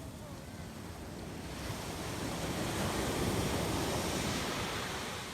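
An ocean wave breaking and washing up the beach, the surf swelling to its loudest in the middle and easing off near the end.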